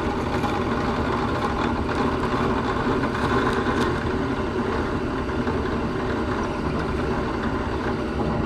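Drill press motor running steadily while the bit bores the first hole into a round wooden blank.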